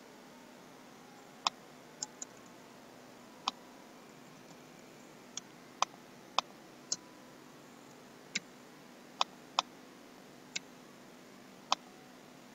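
Computer mouse clicking: about a dozen short, sharp single clicks at uneven intervals, over a faint steady hum.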